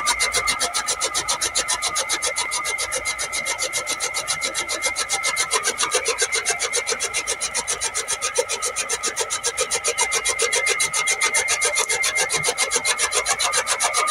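Tractor-driven toka (flywheel chaff cutter) running, its blades chopping green fodder as it is fed in, in a fast, even rhythm with a steady whine underneath.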